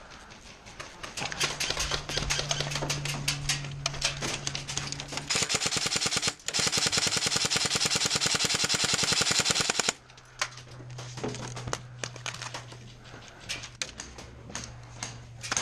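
Airsoft rifles firing: scattered single shots and short bursts, then about five seconds in a loud rapid full-auto burst lasting about four seconds, broken once by a brief pause. A low steady hum sits under the quieter stretches before and after the burst.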